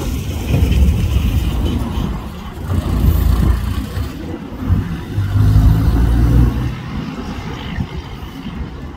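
Boeing 737 airliner's jet engines rumbling as it climbs overhead: a low, uneven rumble that swells and fades several times.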